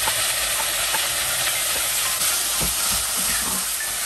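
Oil sizzling in a pot as diced potato and carrot are tipped into frying onions, then stirred with a wooden spatula, with a few soft knocks of the spatula against the pot in the second half.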